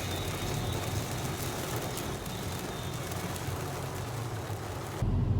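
A car driving, with steady road and engine noise and a low rumble. It cuts off suddenly near the end.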